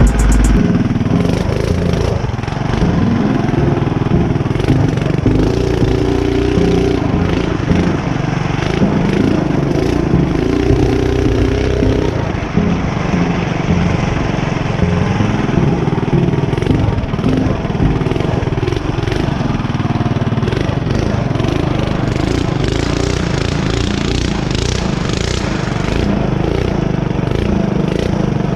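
Mini bike's small single-cylinder engine running under throttle, its pitch rising and falling as the throttle changes, with scattered knocks from the bike going over the trail.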